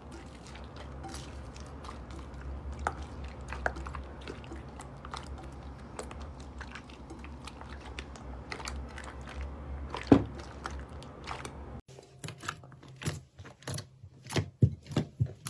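Hands squeezing and kneading beaded slime, a steady crunching and squishing made of many small crackles, with one sharp pop about ten seconds in. Near the end, dark clear slime pressed under the fingers gives a run of louder separate squelching pops.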